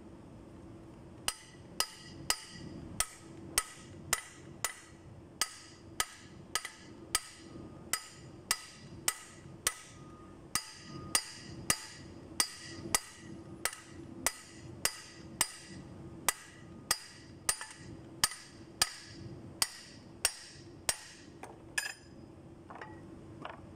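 Hammer blows on the steel fan pulley of a Cummins QST30 engine, a steady rhythm of about three strikes every two seconds, each with a short metallic ring, stopping near the end after a few fainter knocks. The blows work the pulley loose from its tapered fit.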